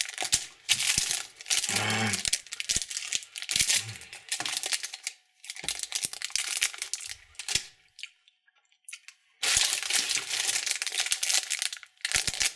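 Plastic candy wrappers crinkling and tearing as they are handled and opened, in dense crackling bursts with a short break about five and a half seconds in and a longer one of about a second and a half near the two-thirds mark.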